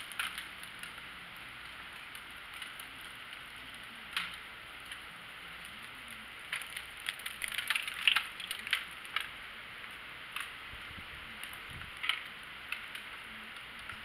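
Scattered clicks, taps and knocks from a phone being handled against a window frame and sill, busiest from about six and a half to nine seconds in, over a steady hiss.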